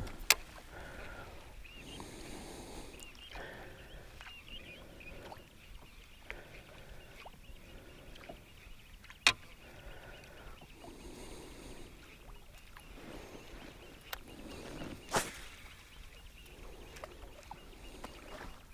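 Quiet sounds of a small fishing boat on the water, with three sharp knocks of gear against the boat, the loudest about nine seconds in.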